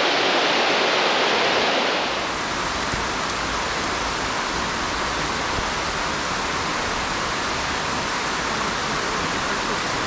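Steady rushing of a small waterfall on a stream. About two seconds in the sound drops a little and takes on more low rumble.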